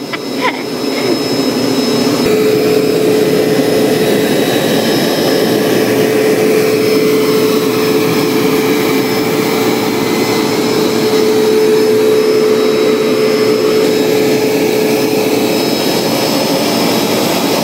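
Bissell ProHeat Pet Turbo upright carpet cleaner running on carpet: a steady motor whine over rushing suction noise, getting louder about two seconds in and then holding level.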